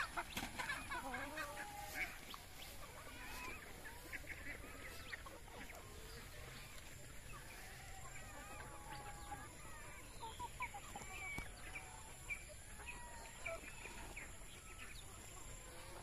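Free-range flock of Rhode Island Red and local chickens clucking and calling, many short overlapping calls scattered throughout.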